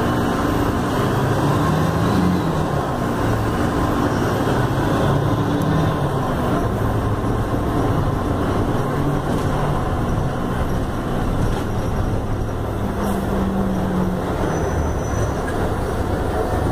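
Mercedes-Benz OF-1519 city bus's diesel engine running, heard from inside the bus cabin as it moves through traffic. The engine pitch rises and falls a few times as the bus speeds up and eases off.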